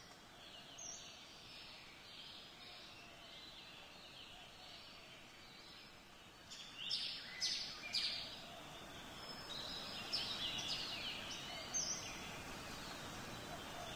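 Birds chirping over a faint steady hiss of outdoor ambience: scattered short calls, with louder clusters of chirps about seven seconds in and again around ten to twelve seconds.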